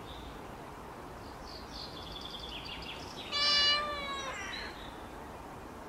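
A cat meowing once, a single drawn-out meow lasting a little over a second, about halfway through, that falls in pitch as it ends.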